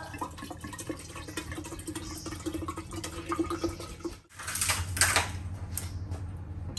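Cold water pouring into a glass jug, a steady splashing fill. After a short break about four seconds in, a few loud clicks and cracks as a plastic ice-cube tray is handled.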